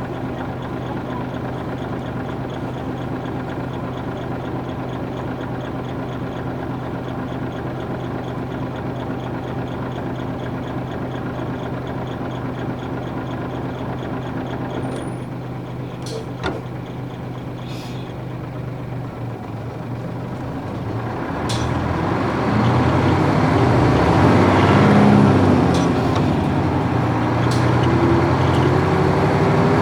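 Nissan Diesel UA440 city bus with its PF6 diesel engine, heard from inside: the engine runs steadily for about twenty seconds, with a few short clicks partway through. It then grows louder, and the engine note climbs as the bus accelerates.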